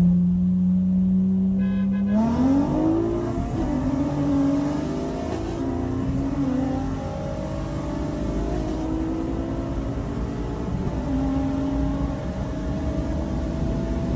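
Honda J-series V6 held at steady revs while rolling, then floored about two seconds in for a roll race. Revs climb sharply and run up through gear changes, the pitch dropping at each shift and climbing again.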